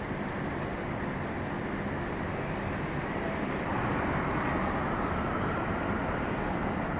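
Steady city traffic noise with a low hum, swelling a little about four seconds in as a vehicle draws near.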